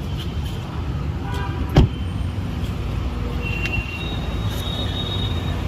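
Steady low rumble of a car engine running, with one sharp loud knock a little under two seconds in and a brief high tone in the second half.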